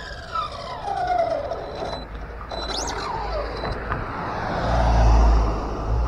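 Team Associated DR10 electric RC drag car's drivetrain whining and falling in pitch as the car slows, with the slipper clutch slipping and "screamin". A low rumble swells and is loudest about five seconds in.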